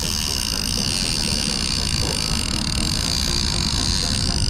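Steady rumble of a boat under way at trolling speed, mixed with wind noise on the microphone, with a steady high whine over it.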